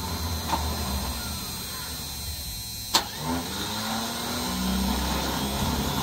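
An engine idling steadily, with one sharp click about three seconds in, after which a higher tone rises and holds.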